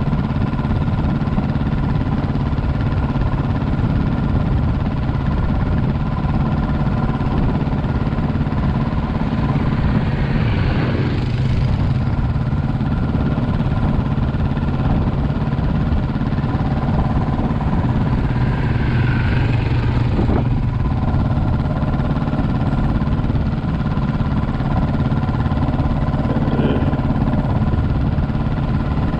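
Quad bike engine idling steadily, heard close up from the rider's helmet, with a couple of brief rising whines about ten and nineteen seconds in.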